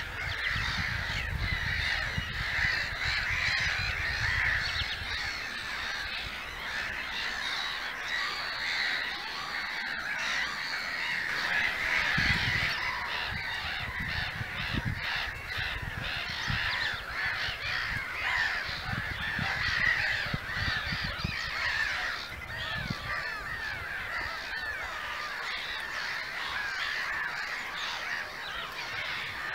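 A dense chorus of many black-headed gulls calling over one another, with wind rumbling on the microphone, most at the start and in a few gusts around the middle.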